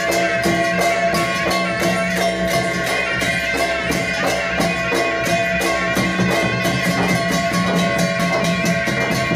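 Large barrel drums (dhol) of an Odia folk drum band beaten in a fast, steady rhythm of about five strokes a second, with cymbal-like crashes and sustained held tones over the drumming.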